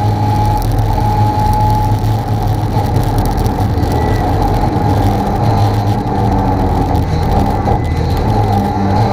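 Lada VFTS rally car's four-cylinder engine running loud and steady at speed, heard from inside the stripped cabin.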